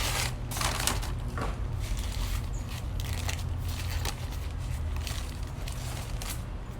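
Paper sandwich bag crinkling and rustling in irregular bursts as it is handled and opened, over a steady low hum.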